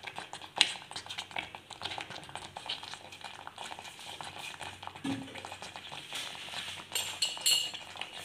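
Thick sweet pongal simmering in a pressure-cooker pot, bubbling with many small irregular pops and plops, and a steel spoon clinking against the pot, sharpest about half a second in and again near the end.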